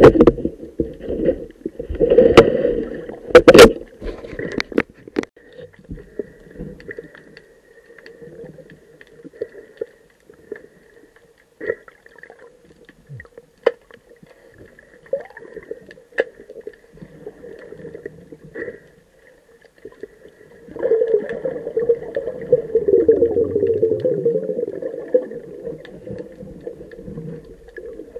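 Underwater sound picked up by a camera in its housing: sharp knocks and clicks in the first few seconds, then quiet water with scattered ticks. About two-thirds of the way in a long stretch of bubbling starts, as of a diver's exhaled air.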